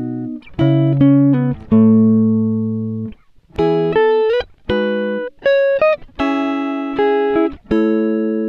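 Background music of plucked chords and single notes, each struck sharply and left to fade.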